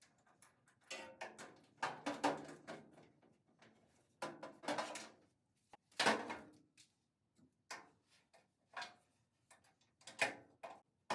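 Irregular metal clanks and knocks of hand tools and bolt hardware being handled while refitting an early Ford Bronco's body mount bushings and washers, some ringing briefly.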